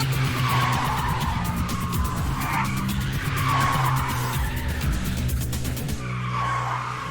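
Cartoon sound effects of a vehicle skidding, with tyres squealing several times, over background music.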